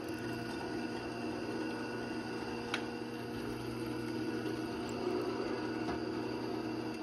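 Drill press motor running steadily while the bit cuts into a cast bronze fitting, with one sharp click about three seconds in.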